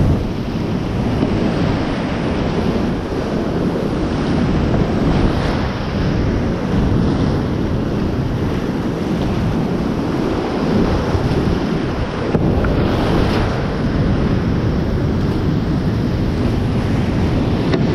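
Steep-creek whitewater rushing loudly and steadily around a kayak running a rapid, with a heavy low rumble of water and air buffeting the microphone.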